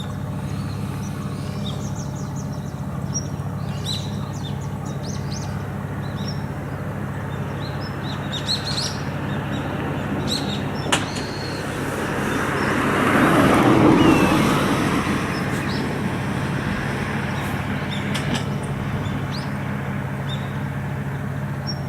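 Fishing-harbour ambience: a steady low hum with small birds chirping over it. A vehicle passes about two-thirds of the way through, swelling and fading, just after a single sharp click.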